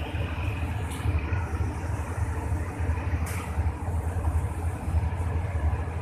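Diesel railway engine running with a steady low rumble, from a train set being reversed, with a couple of short metallic clicks about a second and three seconds in.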